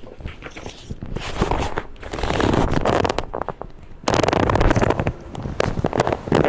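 Chiropractic adjustment of the spine or neck: several quick clusters of crackling pops from the joints, mixed with spells of rustling.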